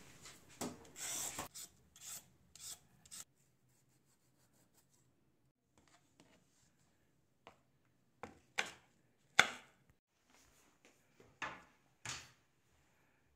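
A hand vegetable peeler scraping down a cucumber's skin in a quick run of strokes, then after a pause a kitchen knife cutting on a wooden chopping board in a few irregular strokes, the loudest about nine seconds in.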